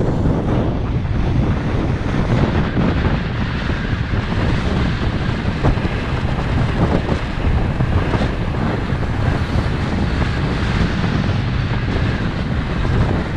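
Wind buffeting the microphone of a camera on a moving vehicle, a steady rushing noise with a heavy low rumble.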